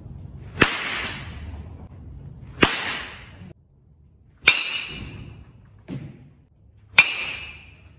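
Baseball bat striking pitched balls four times, about two seconds apart, each a sharp crack followed by the ball rattling off into the cage netting; the later hits leave a short ring. A softer thud falls between the last two hits.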